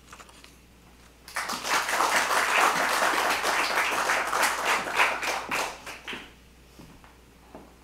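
Audience applauding, starting about a second in, lasting about five seconds and dying away near the end.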